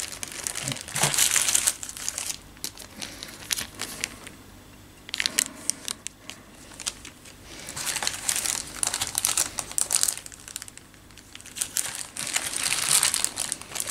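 Small plastic zip-lock bags crinkling as hands handle them and rummage through more bags in a box, in several bursts with quieter gaps between.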